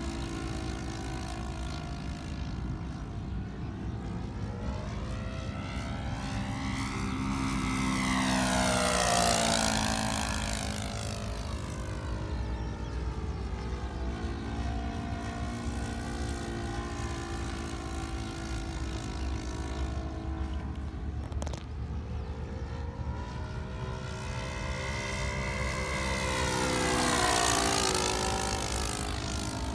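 Engine of a radio-controlled model Decathlon airplane running at steady power as the plane makes two low passes. Each pass rises in pitch and loudness as it approaches and falls away as it recedes, the first about a third of the way in and the second near the end.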